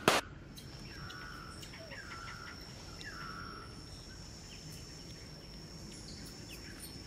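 A sharp click at the very start, then a steady high-pitched insect drone with three short animal chirps about a second apart.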